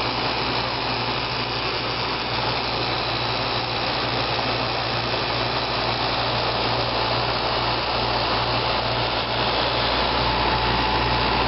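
1995 Fedders window air conditioner running on high cool, heard from the outside close to its compressor: a steady low hum from the running compressor under the even rush of the condenser fan, getting slightly louder near the end.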